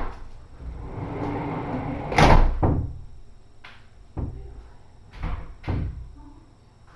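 A rustling noise, then a run of sharp knocks and thumps, the loudest about two seconds in and several lighter ones after, like a door or cupboard being shut and things being set down.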